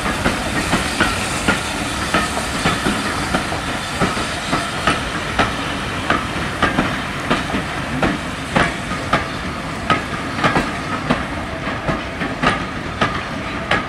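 A rake of heritage passenger coaches rolling past, steel wheels clicking over the rail joints about twice a second over a steady rumble.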